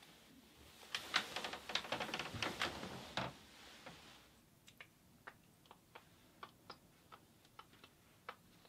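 A quick, dense run of clicks and rustling for about two seconds, then light, sharp ticks about twice a second.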